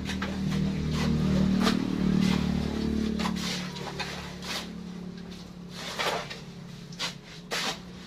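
Shovel blades scraping and chopping into sandy soil, about ten irregular strokes. Under them a vehicle engine hums past, loudest in the first three seconds and fading after about four.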